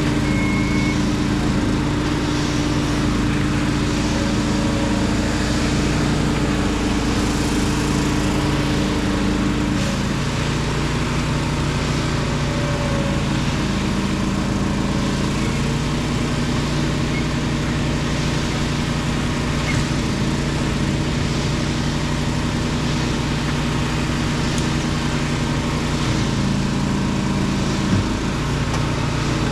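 An engine running steadily at an even speed, with a single short knock near the end.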